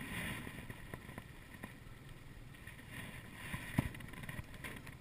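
Wind on the microphone and water around a small boat, with a single sharp click a little under four seconds in.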